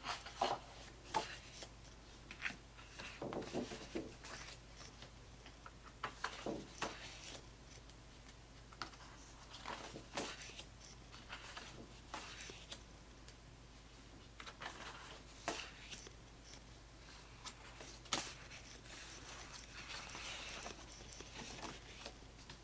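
Stiff double-weight fiber-based photographic prints being lifted and slid off a stack one after another: irregular paper swishes and light flicks and taps as each print is handled.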